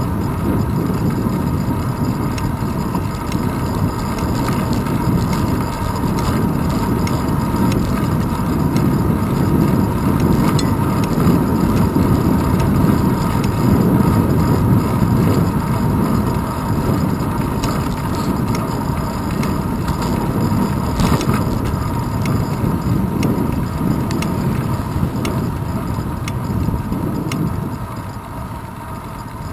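Wind buffeting and road rumble on a handlebar-mounted GoPro of a moving bicycle: a loud, unsteady low rush that drops a little near the end.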